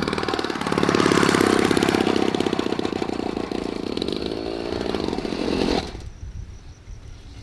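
A motor vehicle engine running with a fast, even firing beat, louder about a second in, then easing off. It cuts off suddenly near the end.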